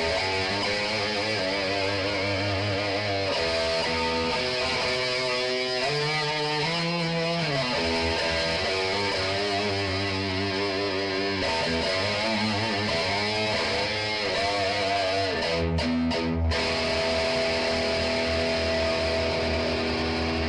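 Gibson Les Paul Classic electric guitar played through a Marshall JCM 900 4102 combo amp with a distorted tone: lead lines with bent notes and wide vibrato. About sixteen seconds in the playing breaks off briefly, then a held note is left ringing.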